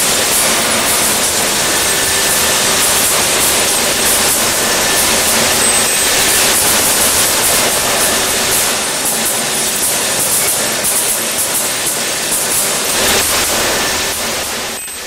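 Dense, continuous clatter of small metal pieces pouring down the chute of an X-ray spectral ore and scrap separator, with a steady hiss from the machinery. It fades out near the end.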